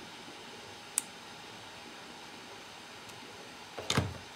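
Craft materials handled on a desk while paper petals are glued on: a single sharp click about a second in and a short cluster of knocks near the end, over a steady low hiss.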